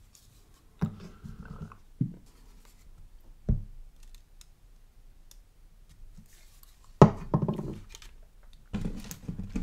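Small knocks, clicks and scraping of plastic model parts and hobby tools being handled and set down on a workbench: a few scattered taps, the loudest a sharp knock about seven seconds in followed by a short clatter.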